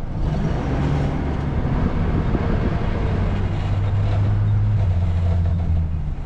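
Pickup truck driving, heard from inside the cab: a steady engine hum and road noise, with the low engine tone growing stronger and then dropping in pitch about five seconds in.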